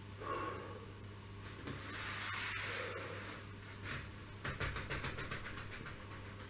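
A man's long, breathy exhale during a seated cool-down stretch, followed about four and a half seconds in by a quick run of soft crackling clicks as he shifts on his foam exercise mat. A low steady hum sits underneath.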